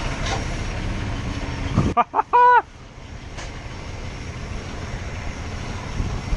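Steady outdoor traffic and street noise. About two seconds in it drops away, and a few short pitched beeps sound, the last lasting about half a second and louder than anything else.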